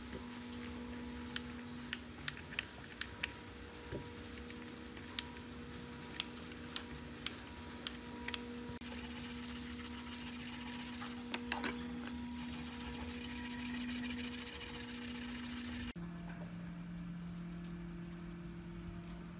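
Scattered light ticks and clicks of hands working on a TV circuit board. From about nine seconds in, a steady hiss of a brush scrubbing the board's solder side with cleaning liquid, louder for a few seconds and cutting off sharply near the end.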